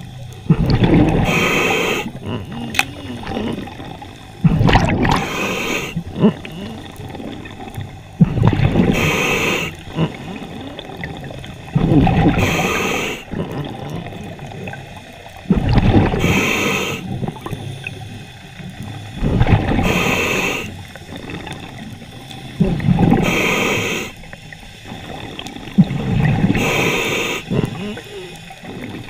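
Scuba diver breathing through a regulator underwater: a bubbling exhale and a short hiss of the inhale, repeating about every three and a half seconds, eight breaths in all.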